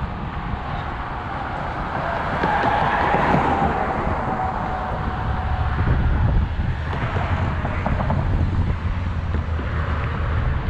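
Road traffic going by, with wind rumbling on the microphone.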